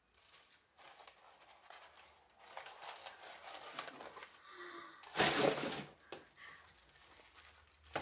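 Brown kraft packing paper rustling and crinkling as it is handled and pulled out of a box, with a louder burst of noise about five seconds in.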